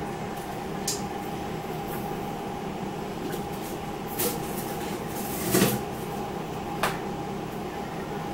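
A few brief knocks and clatters of things being handled in a kitchen, the loudest a little past the middle, over a steady background hum with a faint whine.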